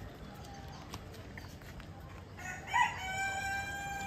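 A rooster crowing once: one long, level call that starts a little past halfway through, peaks at its onset and is held until the end.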